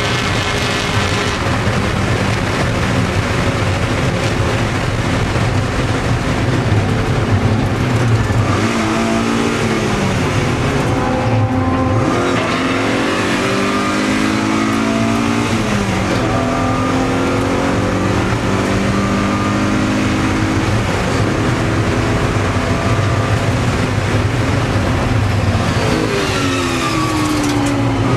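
Race car engine heard from inside the cockpit under hard acceleration. It climbs in pitch in several runs, dropping sharply at each upshift, then falls steadily near the end as the car slows.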